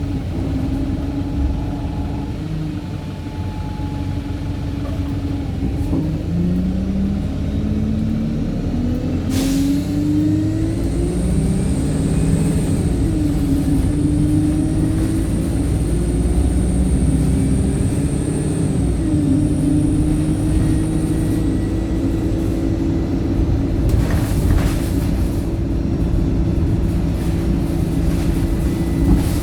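Wright StreetLite single-deck bus engine heard from on board, described by the uploader as tired. It runs low at first, then pulls away, rising in pitch through several gear changes before settling into a steady cruise. A faint high whine sounds while it gathers speed, with a short burst of air hiss about nine seconds in and another late on.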